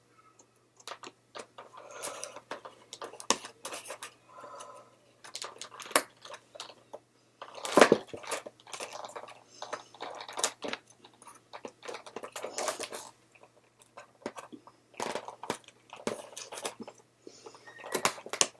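Stiff plastic toy packaging crinkling and crunching as it is pulled and cut at, in irregular crackles and clicks, loudest about eight seconds in.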